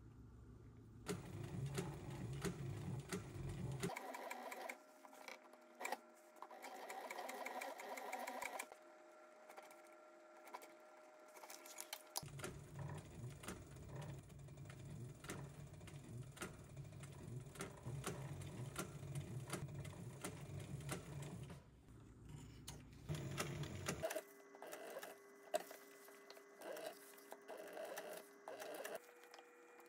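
Industrial sewing machine stitching black leather, running in several short runs with abrupt stops, its needle strokes a rapid ticking.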